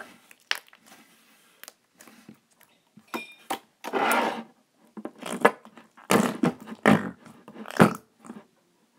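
Bubbly slime being squeezed and poked by hand: small clicks and crackles at first, then about five louder squelches and pops from about four seconds in as it is worked and stuffed into a glass jar.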